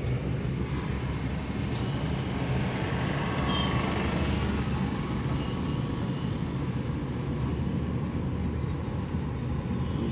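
Steady road and engine noise inside the cabin of a moving Suzuki car, heard from the back seat.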